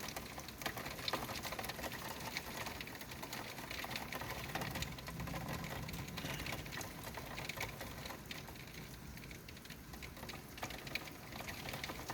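Heavy thunderstorm rain falling steadily, a dense patter of drops striking hard surfaces.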